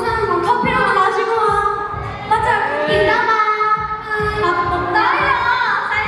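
Women's voices singing a pop song live over backing music: K-pop girl group members performing at a sound check.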